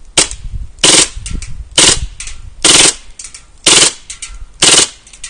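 KWA MP9 A3 gas-blowback airsoft submachine gun firing on full auto: a single shot near the start, then five short rattling bursts about a second apart. It runs on gas at about 5 °C, which leaves the gas short of its best.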